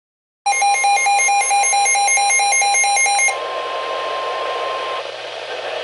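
Weather radio warning alarm: a loud steady tone near 1 kHz starts about half a second in, with rapid electronic beeping on top, about four to five beeps a second. The beeping stops a little past three seconds in, the steady tone cuts off about five seconds in, and a radio static hiss remains.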